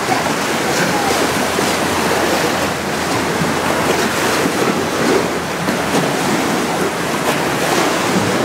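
Sea water sloshing and splashing against rock and a small boat's hull, with wind buffeting the microphone.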